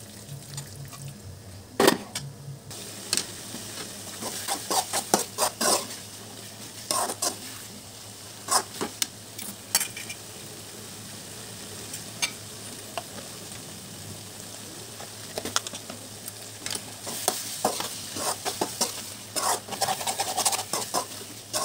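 Thick pork curry sizzling in a metal pot while a slotted metal spoon stirs it, scraping and clinking against the pot in repeated bursts.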